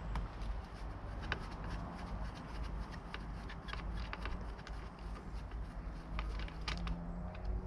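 Small scattered clicks and ticks of a hand tool working the screws under a motorcycle's rear seat, over a steady low rumble.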